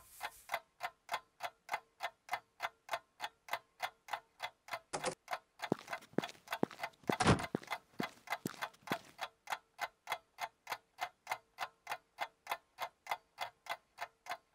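A clock ticking steadily, about three ticks a second. Midway through comes a short cluster of louder knocks and clatter.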